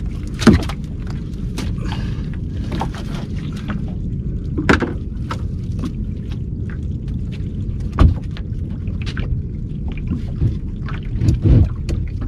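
Several sharp knocks and lighter clatter from crabs and a crab pot being handled on a small boat's deck, over a steady low rumble.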